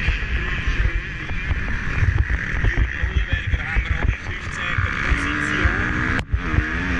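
Motocross bike engine running hard under racing load, its pitch rising and falling as the throttle is worked, heard from an onboard camera over a rough low rumble. The engine sound drops away briefly a little after six seconds in, then picks up again.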